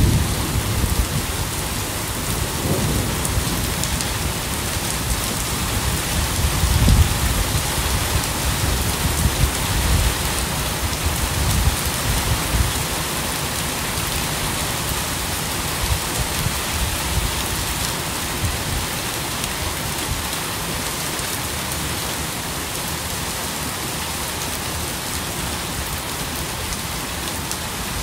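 Rain falling steadily as an even hiss, with low rumbles coming and going over the first dozen seconds or so.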